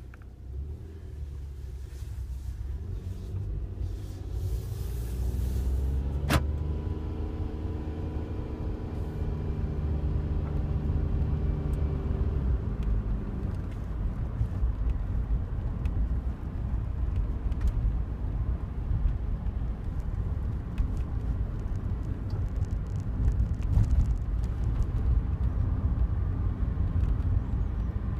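Cabin of a Daihatsu Wake kei car on the move: steady engine and road noise, with the engine note rising between about six and thirteen seconds in. There is a sharp click about six seconds in, and small ticks and rattles come and go from the passenger-side dashboard. This is an abnormal noise that grows louder with vibration.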